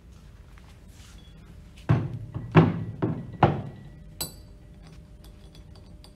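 Heavy metal split-coupling half knocking on a wooden workbench as it is handled and turned over: four dull thunks about two to three and a half seconds in, then one sharper metallic clink, followed by faint small ticks.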